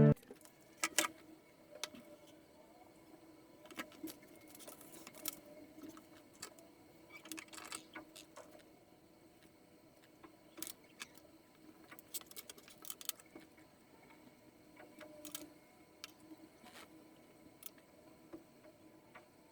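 Quiet desk handling sounds: scattered light clicks and taps with a few brief rustles, over a faint steady room hum.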